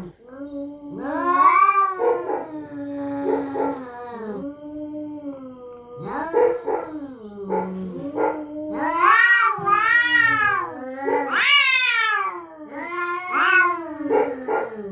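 Cats yowling at each other in a territorial standoff: long, drawn-out caterwauls that waver and glide up and down in pitch, rising to louder, higher cries about nine and eleven seconds in.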